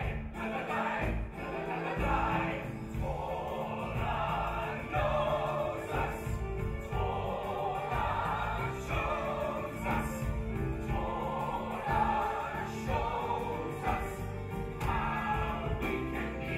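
A men's ensemble singing a stage-musical number together, over instrumental accompaniment.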